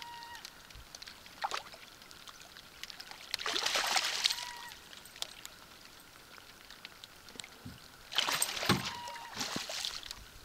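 Hooked northern pike thrashing at the surface beside a canoe: two loud splashing bouts, about three and a half seconds in and again about eight seconds in. Light rain patters on the lake between them.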